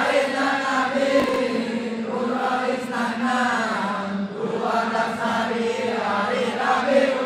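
A group of men chanting dikee, the Acehnese devotional chant (shalawat) in praise of the Prophet, together in unison. The melody rises and falls in phrases of a second or two over a steady low held note.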